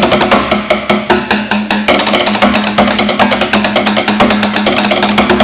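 Loud music with fast, evenly spaced percussion hits over a steady low held note.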